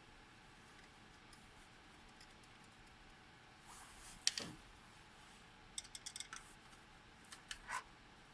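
Hands working on a copier's hard drive and its mounting: one sharp knock with a brief sliding scrape about halfway through, then a quick run of small clicks and a few more clicks near the end.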